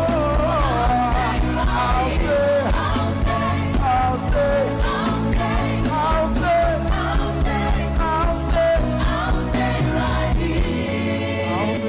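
Gospel worship band music with a steady beat and bass under a bending melodic line, without clear sung words; the deep bass drops away near the end.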